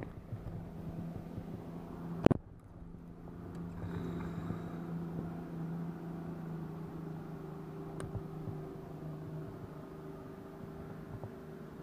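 Steady low mechanical hum from a bass boat's motor, with one sharp knock about two seconds in and a faint click later.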